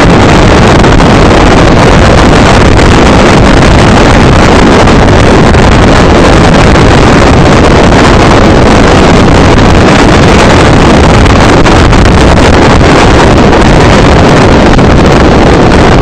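Strong wind buffeting the microphone: a loud, steady rushing noise close to full level, heaviest in the bass, that covers any sound of the waterfall and the sea below.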